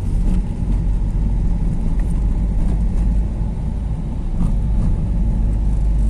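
Car driving slowly, heard from inside the cabin: a steady low rumble of engine and tyres rolling over paving stones.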